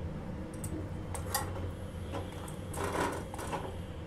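A flat metal spatula clicks and scrapes a few times against the pan and burner grate of a gas stove as a roti is turned and lifted over the flame, over a low steady hum.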